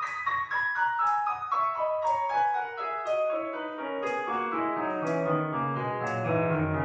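Piano playing a run of notes that steps steadily downward from high to low, settling into held low notes sounding together near the end.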